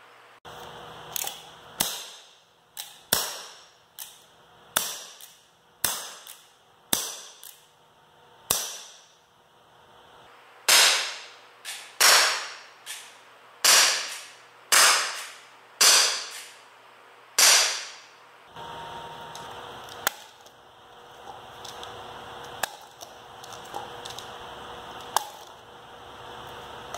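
Umarex Colt SAA CO2 .177 BB revolver shooting: a string of sharp pops about a second apart, each with a short echo, the loudest run of six coming past the middle. Near the end, a few small clicks of gun handling.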